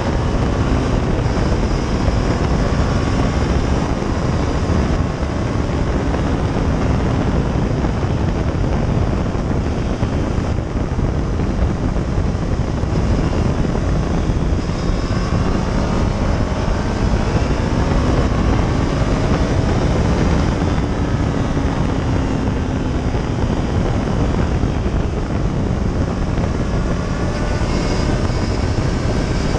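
Onboard sound of a motorcycle at track speed: heavy wind rush across the microphone over the engine, whose pitch rises and falls as the bike accelerates and slows through the corners.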